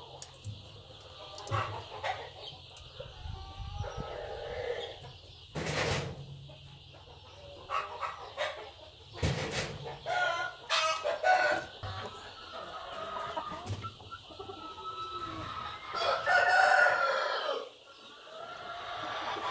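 Rooster crowing, about halfway through and again near the end, with shorter clucking calls in between. Two sharp knocks come before the first crow.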